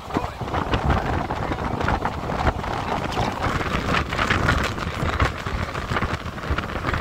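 Passenger train running at speed, heard from an open window: a steady rumble and rattle of wheels on rails, mixed with heavy wind noise on the microphone.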